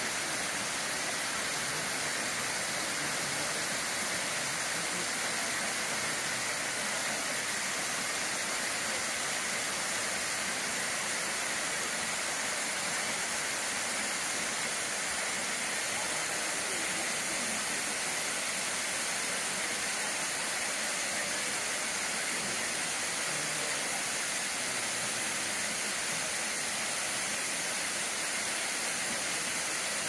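Waterfall pouring into a pool: a steady, even rush of falling water, mostly high in pitch with little low rumble.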